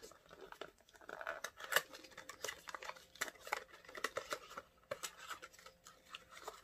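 Small product packaging being handled and opened by hand: scattered light clicks, scrapes and rustles of cardboard, faint at times.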